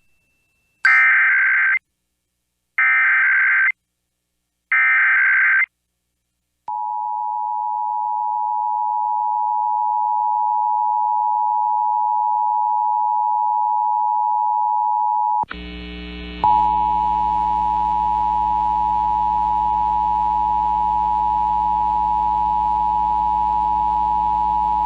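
Emergency Alert System header for a Required Monthly Test: three one-second bursts of warbling SAME data tones with short gaps between, followed by the steady two-tone attention signal (853 and 960 Hz). About halfway through the tone a low buzz with many overtones joins underneath it.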